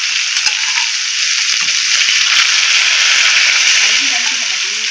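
Half-boiled whole potatoes, skins on, frying in hot mustard oil in a kadai: a steady, loud sizzle with a few sharp pops of spatter. They are stirred with a slotted metal spoon.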